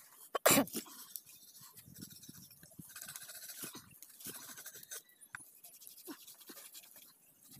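Knife cutting and scraping through the skin and flesh of a singed pig carcass, a run of rasping strokes, with one sharp knock about half a second in.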